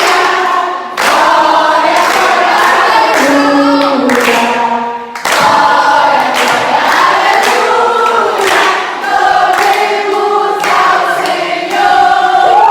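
A group of voices singing together, chorus-style, with short pauses between phrases about a second in and around five seconds in.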